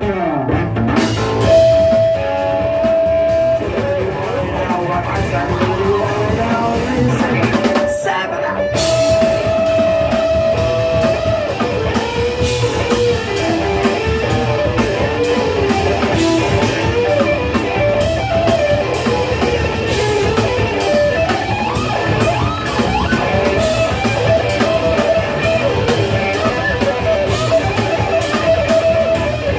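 Live rock band playing an instrumental passage: a lead guitar line with long held notes over bass and drum kit.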